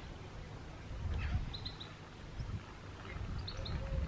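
Small birds chirping, short high chirps in quick clusters of three or four that repeat every second or so, over a low rumble that swells about a second in.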